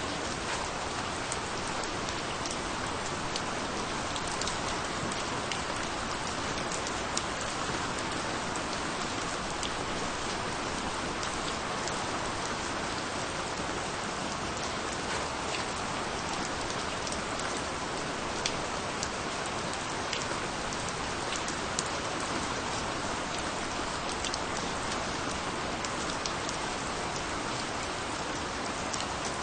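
Steady rain falling on a surface, an even hiss with many small individual drop ticks and no thunder.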